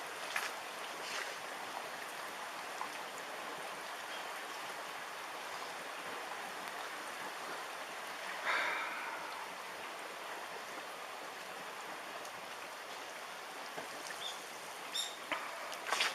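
Tsunami floodwater rushing steadily, a continuous even hiss. A brief louder noise rises out of it about eight and a half seconds in, and a few sharp clicks come near the end.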